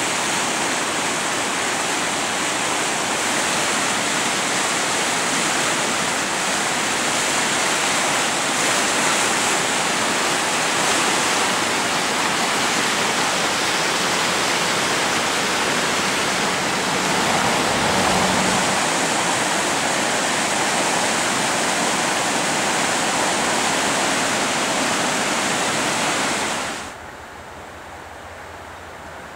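Swollen, fast-flowing floodwater rushing in a steady, loud roar around trees and brush. Near the end it drops abruptly to a much quieter flow.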